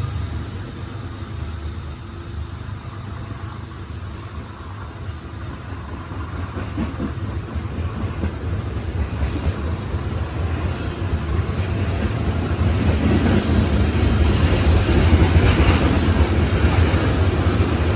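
Loaded CSX coal train rolling past, a steady low rumble of the heavy cars on the rails that grows louder over the second half.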